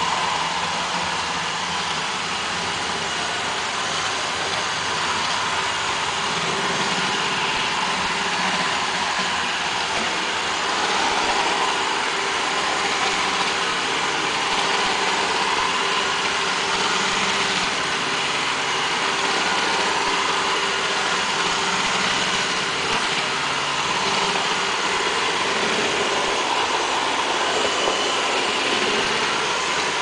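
An iRobot Roomba Discovery robot vacuum running across a bare hardwood floor: a steady whirring of its vacuum motor and brushes, with a few constant high tones over it.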